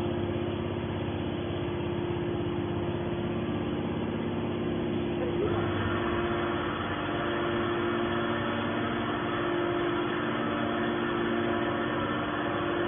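Hydraulic scrap shear baler's power unit running with a steady hum, a few held tones over it; a higher tone joins about five and a half seconds in.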